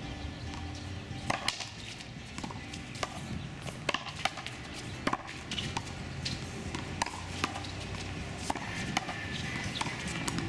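Racquetball rally: the hollow rubber ball gives sharp smacks off the racquets and the concrete walls and floor, about a dozen at irregular intervals, starting about a second in. Under them is a steady low background hum.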